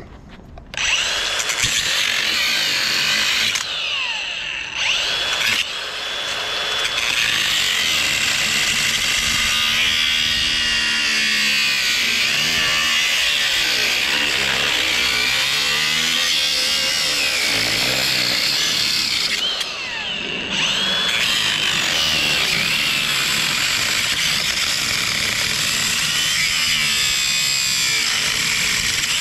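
Craftsman V20 brushless cordless angle grinder cutting into the steel core of a large transformer. It starts about a second in and runs with a high whine whose pitch wavers as the disc bites, easing off briefly twice.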